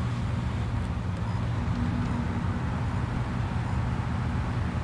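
Steady low rumble of a car idling while stopped in traffic, heard from inside the cabin.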